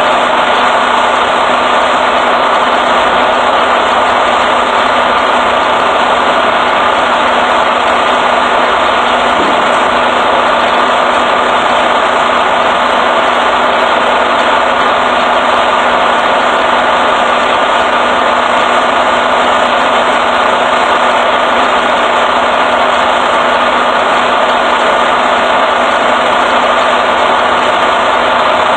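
Semi truck's diesel engine idling, a steady unbroken hum close by.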